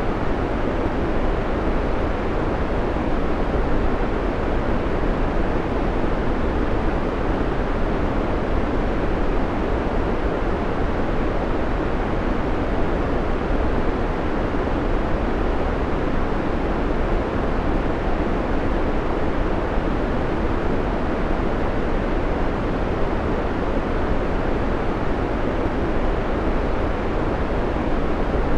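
Steady synthetic white noise: an even, unbroken rushing hiss, heaviest in the low end, that does not change.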